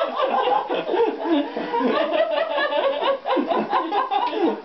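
Several people laughing together without a break.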